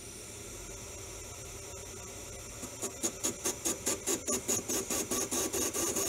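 Manual metal lathe running with a steady hum as the tool is fed into a bar. About two and a half seconds in, the tool starts cutting with a rhythmic scraping pulse about five times a second, growing louder as the cut builds.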